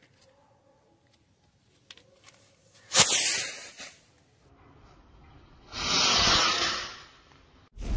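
Diwali firework rocket's fuse crackling faintly, then the rocket firing off with a sudden loud whoosh about three seconds in that hisses away within about a second. A second hissing rush follows a few seconds later and cuts off sharply.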